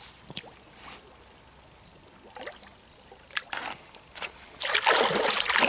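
Light drips and small splashes of lake water, then, about four and a half seconds in, loud splashing and sloshing as a big catfish is released from a wet sling at the water's edge and swims off, with hands swishing in the water.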